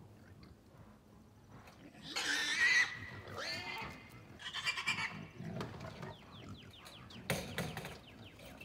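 Pig squealing: three harsh screams, the first and loudest about two seconds in, the others about three and a half and four and a half seconds in, then a single sharp knock about seven seconds in.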